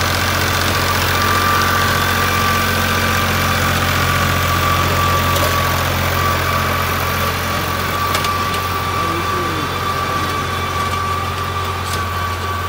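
New Holland farm tractor's diesel engine running steadily under load, driving a rotary tiller that churns the soil. A low, even drone carries a steady high whine over it.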